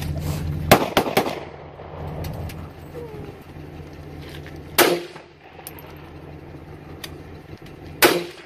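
Rifle shots fired across an open field, each with a short echo: a quick group of two or three about a second in, then single shots about five seconds and eight seconds in. A low engine hum runs underneath at the start.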